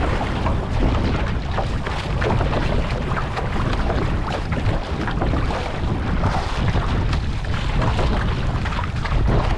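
Wind buffeting the microphone over water rushing and splashing, with frequent small slaps and splashes from paddling on open sea.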